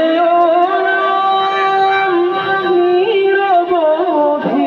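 A single voice singing long, drawn-out notes that slide slowly between pitches, with no beat or instruments.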